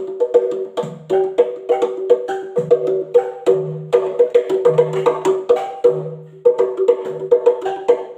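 Stone formations in a cave struck rhythmically like drums, ringing with clear pitched notes in a quick, steady pattern of several strikes a second, with a deeper note recurring beneath.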